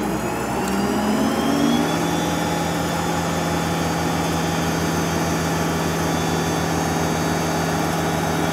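Hydraulically driven Boss BA440 piston air compressor switching on. Its pitch rises over the first couple of seconds, then it runs steadily with a fast, even pulsing as it starts pumping up the air tank.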